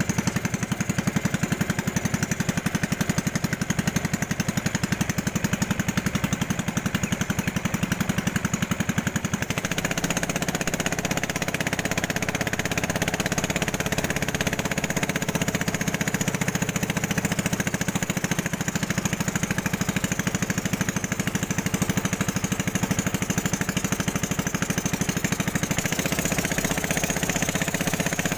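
Small motorboat engine running steadily at speed, a rapid even pulsing; its tone shifts slightly about ten seconds in.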